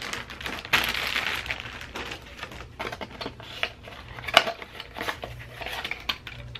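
Packaging crinkling and a paper label rustling as a new camera tripod is handled, with scattered sharp clicks and knocks from the tripod's plastic and metal parts.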